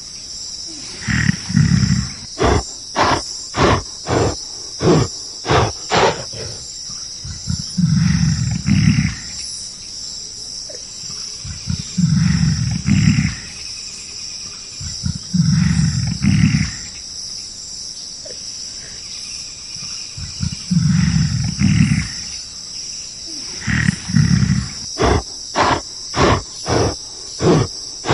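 Gorilla roars and growls, deep bursts of about a second repeated every few seconds. Runs of sharp knocks about two a second come near the start and again near the end, over a steady high insect buzz.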